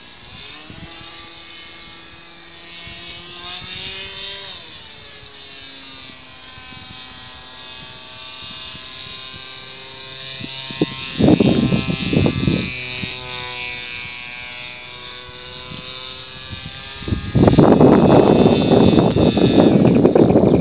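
Motor of a radio-controlled model airplane droning overhead, its pitch drifting up and down as it flies. About eleven seconds in there are short bursts of rushing wind noise on the microphone, and from about seventeen seconds a loud, continuous wind rush covers it.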